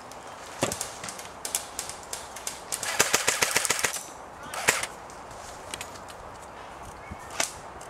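Airsoft guns firing: scattered single shots, then a rapid fully automatic burst of about a second around three seconds in, and a few more single shots after it.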